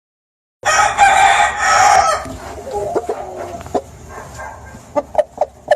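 Aseel rooster crowing once, a loud crow of about a second and a half that begins just under a second in, followed by quieter sounds and several short sharp notes near the end.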